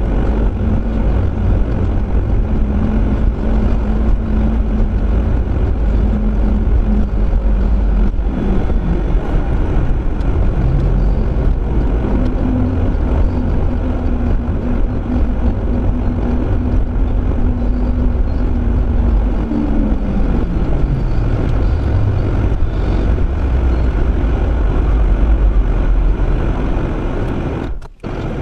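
Car driving on the road: steady engine and tyre noise with a deep rumble and a held drone whose pitch drops about twenty seconds in as the car slows down. A brief break in the sound comes just before the end.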